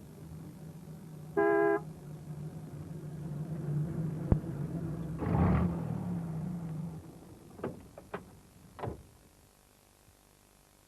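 Small van's engine running steadily, with one short toot of its horn about a second and a half in. The engine swells briefly in the middle and dies away about seven seconds in, followed by a few short knocks.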